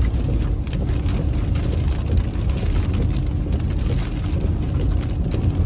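Heavy rain pelting a car's roof and windows, heard from inside the cabin as a dense patter of many small hits over a steady low rumble.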